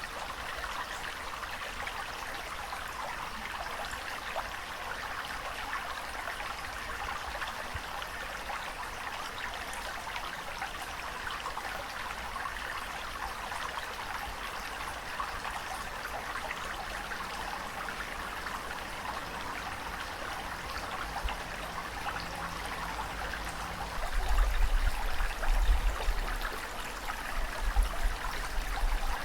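Water flowing and trickling in a steady, even rush. About 24 seconds in, a low, irregular rumbling joins it and makes it louder.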